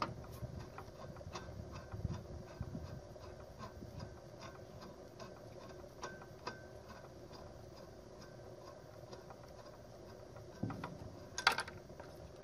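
Faint, scattered clicks and ticks of metal fittings being handled at a breathing-apparatus cylinder valve as the connection is detached, with a sharper clack near the end.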